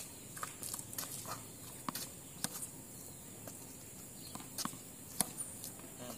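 Scattered short taps and knocks, irregularly spaced: tennis balls bouncing on a hard court and being struck with a racket, mixed with shoe scuffs.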